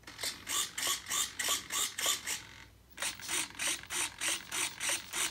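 Elevator and rudder servos of an E-flite Air Tractor RC plane driving back and forth in quick strokes: a short gear-train buzz about three times a second, with a brief pause a little past halfway. The servos are set to a 22 ms frame rate and move cleanly, without the jitter they had at 11 ms.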